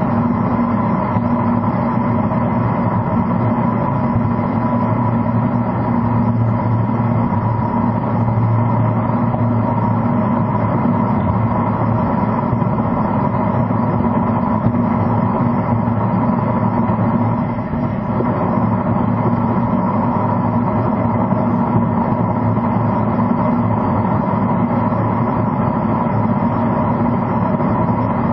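Steady road and engine noise of a car cruising at expressway speed, heard inside the cabin: a constant drone with a low hum, briefly dipping about two-thirds through.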